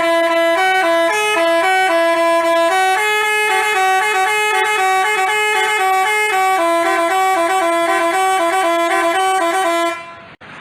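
Basuri telolet multi-tone horn playing a quick tune of stepped notes, the notes changing several times a second. It cuts off suddenly near the end, leaving a short faint hiss.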